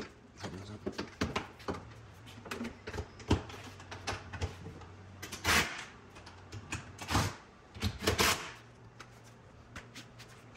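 Scattered knocks, clicks and clunks of a metal bracket and tools being handled on a fiberglass jet ski, with three louder clattering bursts in the second half. A faint low hum runs underneath.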